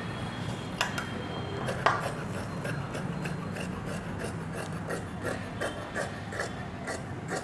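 Long tailoring scissors cutting through cloth on a table: a run of blade strokes with the rasp of fabric rubbing under the blades, the sharpest snips about one and two seconds in.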